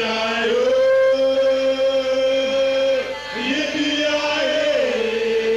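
Male voices singing long held notes in harmony, live on stage: one sustained phrase of about three seconds, a brief break, then another held phrase.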